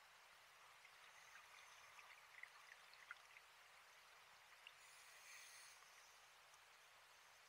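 Near silence underwater, as heard through a dive camera's sealed housing: faint scattered clicks between about one and three and a half seconds in, and a brief faint hiss about five seconds in.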